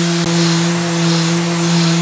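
Mirka Deros random orbital sander running against an oak platter: a steady motor hum under a hiss of sanding.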